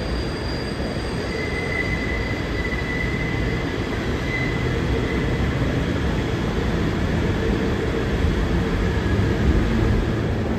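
R188 subway train rolling in on elevated steel track, a steady rumble that grows slightly louder. A thin, high wheel squeal sounds from just over a second in to about four and a half seconds.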